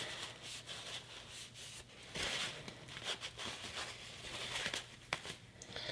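Faint, irregular rubbing and scrubbing as the small holes of an Apple Watch band are cleaned, with a few light clicks.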